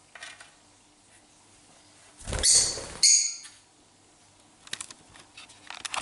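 A lovebird gives two loud, harsh, shrill shrieks in quick succession about two and a half seconds in, then a few light taps and clicks near the end.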